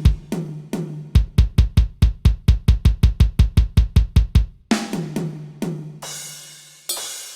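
A drum kit being played. A few ringing tom strikes come first, then a fast even run of heavy low hits at about five a second for over three seconds. After that come more tom strikes and cymbal crashes near the end.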